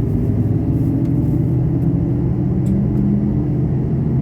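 Steady low rumble of a moving vehicle running at an even pace, with a faint hum a little higher in pitch.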